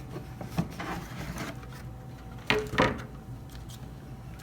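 Cardboard shoe box being opened and its contents handled: scattered light rustles and knocks, with two louder bumps about a third of a second apart just after halfway.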